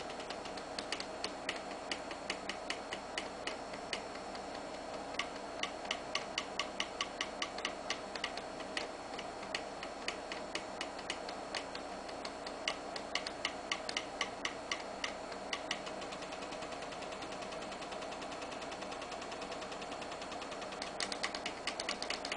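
Floppy-drive stepper motors of a small pen-plotting CNC machine ticking in quick runs of steps as the pen moves, about five ticks a second, over a steady hum. The runs stop for a few seconds before a last run near the end.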